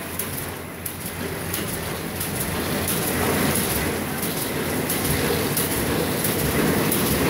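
Paper bag-making machine with a flexo printing unit running: a steady mechanical clatter with scattered sharp clicks, growing somewhat louder about two to three seconds in.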